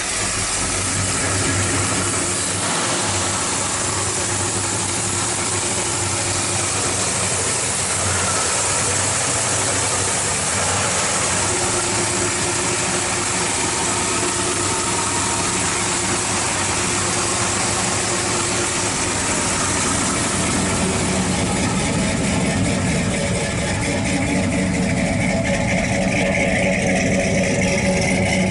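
The 1963 Ford F-Series pickup's V8 idling steadily, a little louder in the last few seconds.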